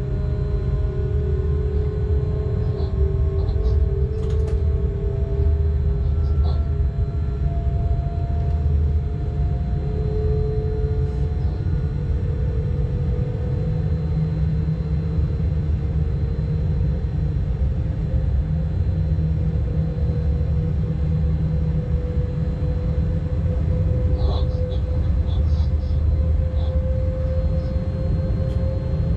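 Cab of a Bombardier TRAXX class 186 electric locomotive under way: a steady low rumble with a whine from the traction drive that rises slowly in pitch as the train gains speed. A few faint ticks sound over it.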